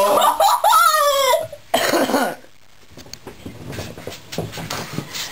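A person's loud wordless cry, high and swooping up and down in pitch, then a second shorter cry about two seconds in. After that come scattered knocks and rustling.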